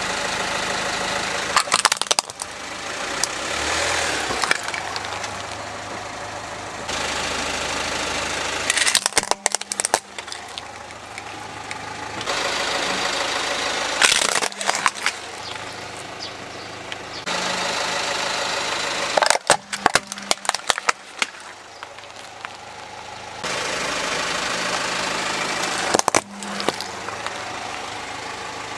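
Car idling as it creeps forward, its tyre crushing plastic toy trucks again and again. There are five bursts of cracking and snapping plastic over a steady engine hum.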